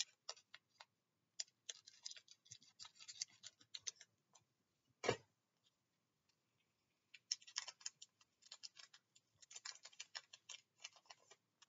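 Foil Pokémon booster pack crinkling and crackling as it is handled and opened, in two spells of fine crackles, with a single knock about five seconds in.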